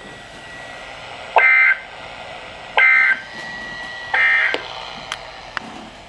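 Weather alert radio sounding the EAS end-of-message code: three short data bursts, each about a third of a second and about 1.4 seconds apart, with radio hiss between them. They mark the end of the warning broadcast.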